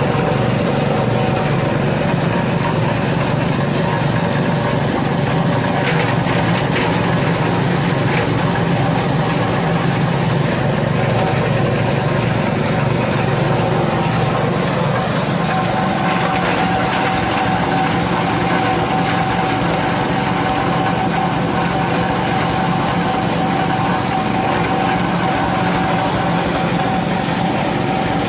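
Coconut-husk grinding machine for making cocopeat and cocofiber, running steadily with a continuous engine-like drone; a steady whine joins in about halfway through.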